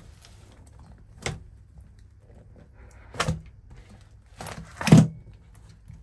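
Cardboard parcel box being opened by hand: a few separate knocks as the taped lid is worked loose and pulled off, the loudest a thump about five seconds in.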